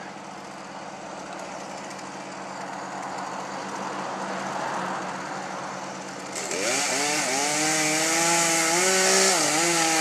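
Poulan two-stroke chainsaw cutting through a tree trunk. It runs softer and slowly grows louder at first, then about six seconds in it opens up to full throttle, its pitch wavering and dipping under load as it bites into the wood.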